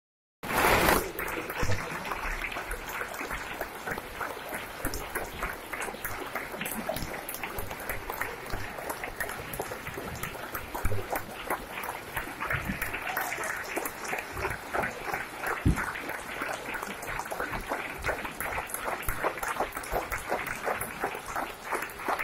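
Theatre audience applauding: a dense, steady crowd of hand claps.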